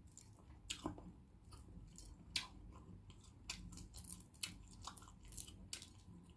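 Faint close-up eating sounds of balut: chewing with irregular wet clicks and smacks.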